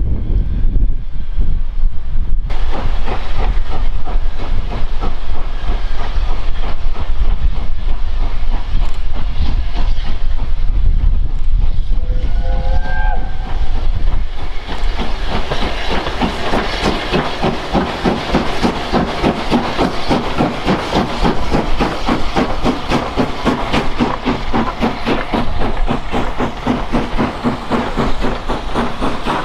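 Steam train led by Maunsell S15 4-6-0 no. 847, running with a steady rush of steam and motion noise. A short steam whistle sounds about twelve seconds in. After that the coaches roll past with a rapid, regular clickety-clack of wheels over the rail joints.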